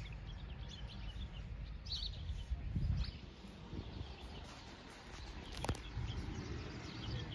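Small birds chirping in short, repeated calls over a steady low rumble, with a louder low swell about three seconds in and a sharp click a little before six seconds.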